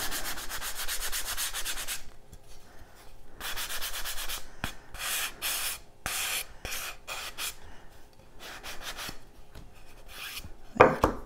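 Hand sanding the edges of a pine wood picture frame with a sanding sponge, lightly scuffing them: a steady rasping rub for about two seconds, then a run of separate short strokes. A brief thump near the end.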